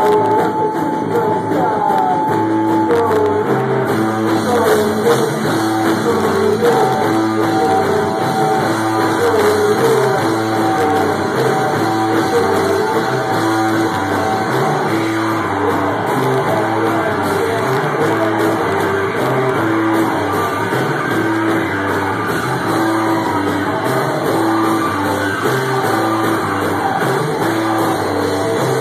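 Live rock band playing loud: drum kit and electric guitar over a repeating riff, with a singer at the microphone.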